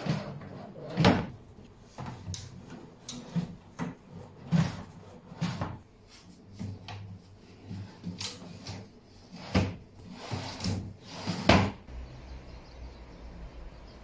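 Drawers of a new white chest of drawers being slid open and pushed shut on metal slide runners: short sliding rushes and a string of sharp knocks as they close, the loudest about a second in and just before the end. For the last two seconds only a steady low hum remains.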